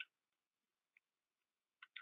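A few faint clicks from a Beretta Px4 Storm pistol being handled after reassembly: one at the start, one about a second in, and a quick pair near the end.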